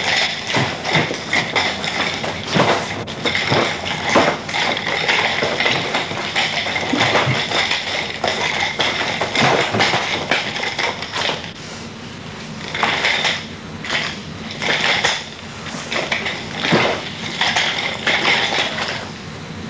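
Nunchaku swung and spun at speed in a striking and blocking combination: a fast, irregular run of clacks and clicks. After about 11 seconds it thins into separate bursts of clatter.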